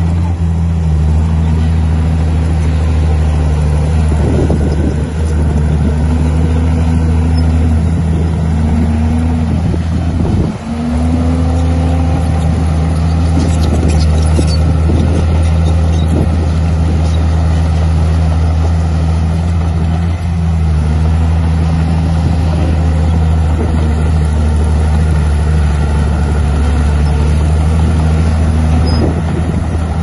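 Komatsu D51 bulldozer's diesel engine running steadily, its pitch dipping and rising again several times, with a brief drop in loudness about ten seconds in.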